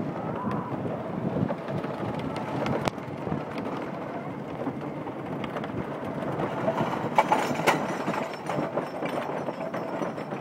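Wooden roller coaster train rolling along its track: a steady rumble of wheels with scattered clacks, and a cluster of louder clacks about seven seconds in.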